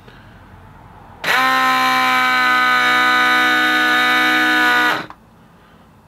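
Air-horn compressor running for about four seconds, a loud steady buzz that starts about a second in and cuts off suddenly. The horn trumpet gives no note: the owner takes the fault to be in the trumpet, since the compressor is new.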